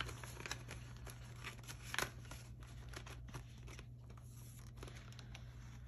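Faint rustling and crinkling of paper banknotes and plastic binder pockets being handled, in small scattered clicks with a sharper rustle about two seconds in.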